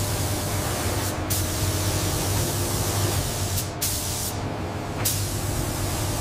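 Robotic paint spray guns hissing, the spray cutting off sharply and restarting a few times, over a steady low hum.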